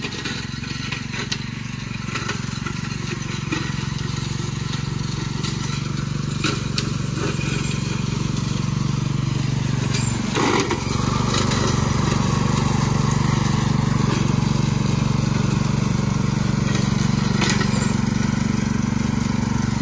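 Small riding lawn mower's engine running steadily while mowing, growing louder as it comes closer. There is a brief crunch about halfway through.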